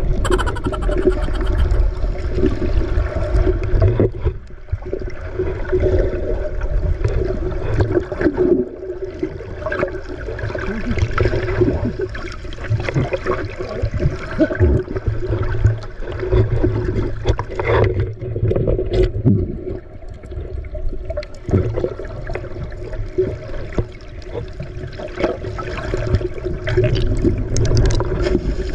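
Water rushing and splashing against a small boat's hull as it runs at sea, with a steady motor hum and heavy low rumble underneath.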